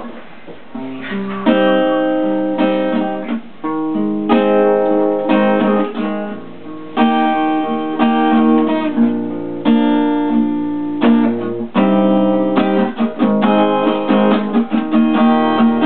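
Acoustic guitar strummed in chords, starting about a second and a half in.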